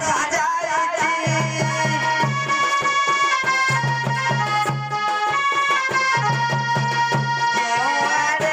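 Traditional folk music: a free-reed instrument plays a melody of long held notes over a steady hand-drum beat.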